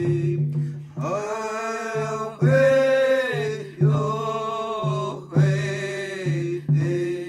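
Indigenous song, with voices chanting in long held phrases over a steady low tone. A new phrase starts about every second and a half, and the song ends near the end.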